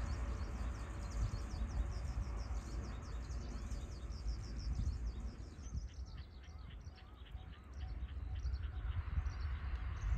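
Small birds chirping in quick repeated notes over a steady low outdoor rumble. Around six seconds in, the rumble dips and the chirps come lower and sparser.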